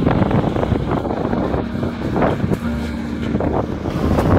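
Storm wind gusting hard and buffeting the microphone in a loud, rumbling roar, with sharp crackles as the gusts hit.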